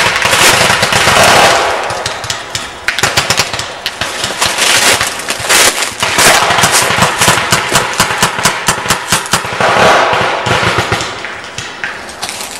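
Paintball markers firing in rapid volleys, many sharp pops a second, the bursts thinning and thickening as several players shoot at once.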